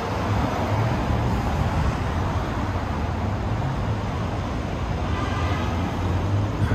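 City street traffic: a steady rumble of cars and engines passing on a busy boulevard, heard from the sidewalk.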